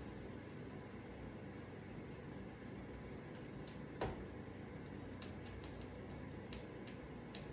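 Light clicks and ticks from handling an iPad during repair, with one sharper click about four seconds in, over a faint steady hum.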